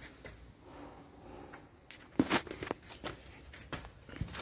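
Rustling and scraping handling noises with a few sharp, irregular clicks in the second half, made by someone getting under a car, over a faint low engine hum.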